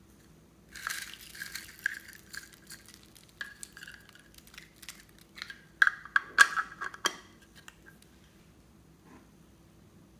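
Small foam beads poured and shaken out of a plastic container into a glass bowl: a run of light clicking rattles that grows heaviest about six seconds in, then stops.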